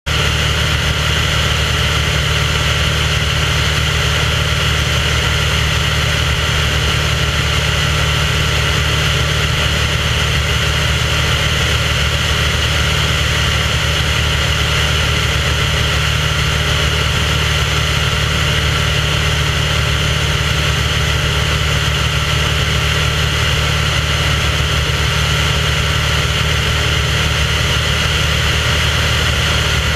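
Piston engine of a small aircraft running steadily in cruise, heard from on board, with a constant drone and no change in pitch.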